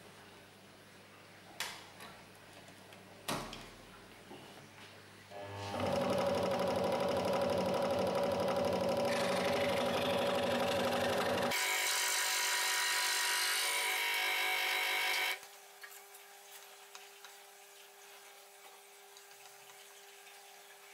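Proxxon scroll saw running and cutting a wooden board, the fast reciprocating blade making a loud, dense buzz from about five seconds in until it stops suddenly about ten seconds later. A couple of sharp clicks come before the saw starts.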